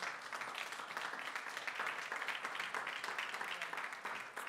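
Congregation applauding: many hands clapping at once.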